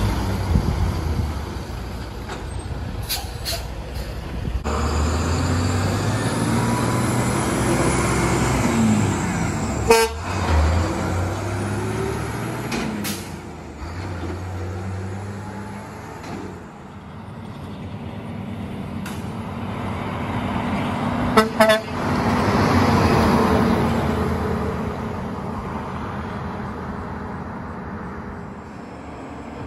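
Diesel trucks running past on a road, one after another: an International forage truck's engine loud and close at the start, then other trucks and cars going by. Short sharp loud sounds cut in about ten seconds in and twice in quick succession a little after twenty seconds.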